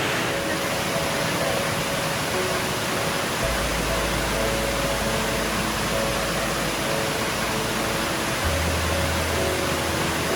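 Background music of slow held notes with a deep bass note coming in about a third of the way through, over the steady rush of a waterfall.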